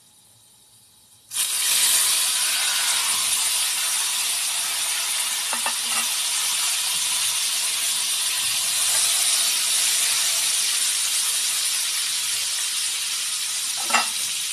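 Whole butterflied chicken hitting hot annatto oil in a wok: a loud sizzle starts suddenly about a second in and keeps on steadily as the meat fries. Two light knocks come through it, one in the middle and one near the end.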